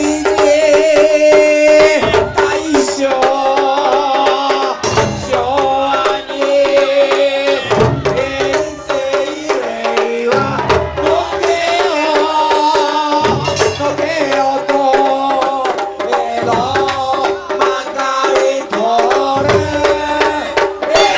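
Live Japanese folk-style band music: drums struck in a steady beat, with heavy low strikes every two to three seconds, under a wavering melody over a held drone.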